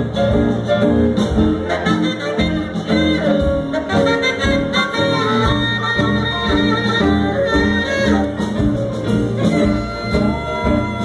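Live band playing: saxophone, electric guitar, drums and keyboard.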